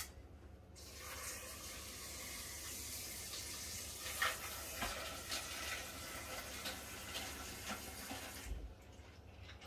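Kitchen tap running steadily, filling with water; it comes on about a second in and is turned off near the end.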